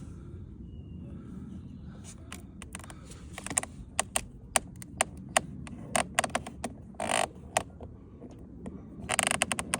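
Small screwdriver prying at a car door's plastic puddle-light lens: a run of sharp clicks, with two short scraping bursts about seven and nine seconds in.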